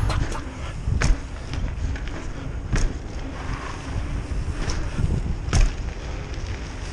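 Downhill mountain bike being ridden: wind on the microphone and a steady rolling rumble, with a few sharp knocks from bumps and rattles along the way.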